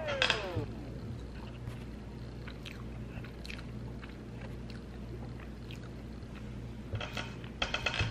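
Close-miked chewing and mouth smacking as a person eats a peanut-butter-frosted donut, opening with a short falling voiced sound. Sparse wet clicks follow, then a run of louder smacking bites near the end.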